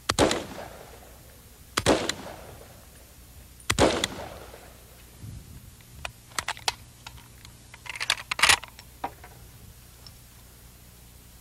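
Three single shots from a semi-automatic hunting rifle, about two seconds apart, each ringing out briefly: one pull of the trigger, one round. A few seconds later comes a string of sharp clicks and clatter, loudest around eight seconds in.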